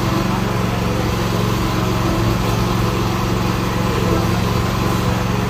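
Small petrol engine of a portable water pump running steadily at an even speed.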